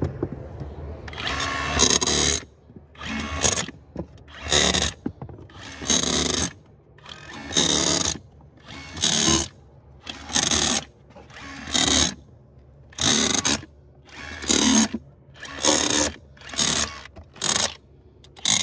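Rotary hammer on its hammer-only setting, fitted with a tile-chisel blade with a welded steel channel foot, tamping loose hempcrete into a wall form. It runs in about fourteen short bursts of half a second to a second, roughly every second or second and a half, with short quiet gaps between them.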